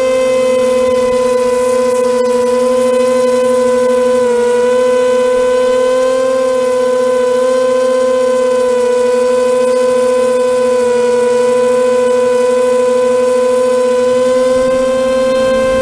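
Twin electric motors and propellers of a JJRC RC plane in flight, heard up close from the fuselage: a loud, steady buzzing whine whose pitch wavers slightly a few seconds in as the throttle shifts.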